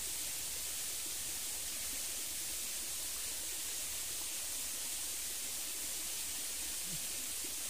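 Steady, even hiss of outdoor background noise with a low rumble underneath, with no distinct events.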